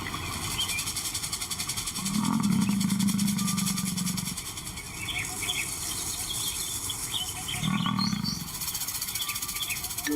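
Male African lion growling low twice: a long growl of about two seconds, then a shorter one near the end, with birds chirping around it.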